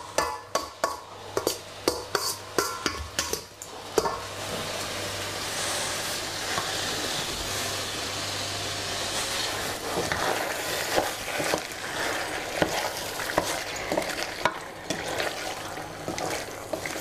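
Marinated chicken pieces sizzling in a stainless steel pot, sharp crackles for the first few seconds, then a steady frying hiss. Near the end a wooden spoon stirs the chicken and knocks against the pot.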